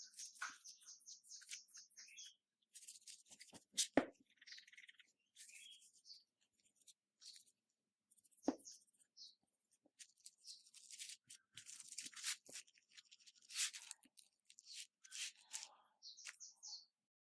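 Faint clicks and scratching of a smartphone and small parts being handled during a screen repair, with two sharper clicks about four and eight and a half seconds in.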